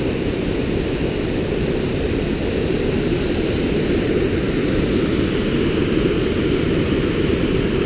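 Steady rushing of white water over a small waterfall and boulder rapids, an even, heavy noise with no change in level.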